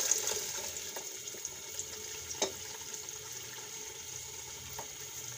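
Hot oil with fried garlic, ginger and green-chilli paste sizzling steadily in an aluminium pot as pureed tomatoes are poured in, with a sharp knock about two and a half seconds in.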